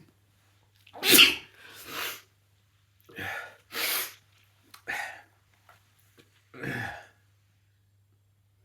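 A person sneezing in a fit set off by sniffing Chhinkni sneezing powder: about six sneezes and sharp breaths, the loudest about a second in, the rest smaller and spread over the next six seconds.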